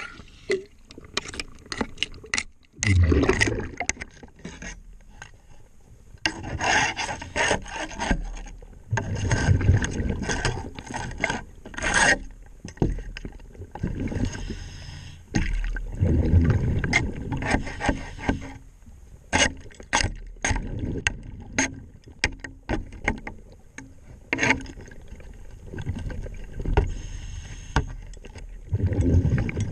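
Underwater hull cleaning: a scrubbing tool scraping and rubbing along a boat's fibreglass hull, heard underwater as uneven scratchy strokes and clicks, broken by louder rushing bursts every few seconds.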